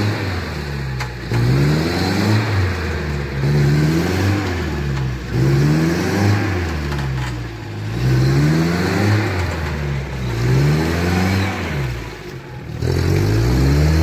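UAZ van's engine revving up and down over and over as the van, stuck in mud, tries to pull itself free with its wheels churning.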